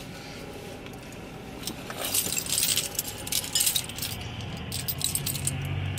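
Small clicks and light clinks of a glass soda bottle and its cap being handled and worked at while someone tries to get it open. The clinking bunches up about two seconds in, and a low hum comes in near the end.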